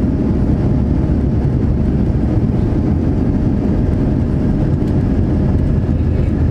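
Cabin noise of a Boeing 787-9 on its take-off roll: its GEnx turbofans at take-off thrust and the undercarriage rolling along the runway make a steady, loud, deep rumble, with a faint steady tone above it.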